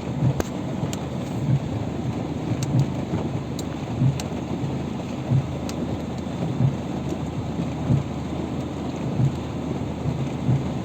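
Heavy rain pouring steadily, with a low thump recurring about every second and a quarter and scattered faint ticks.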